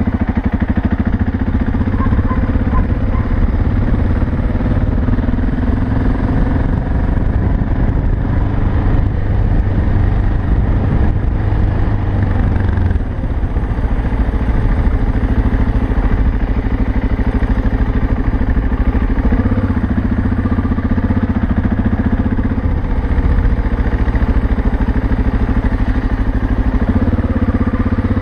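BMW 650 GS single-cylinder motorcycle engine running steadily under way, with a brief dip in loudness about thirteen seconds in.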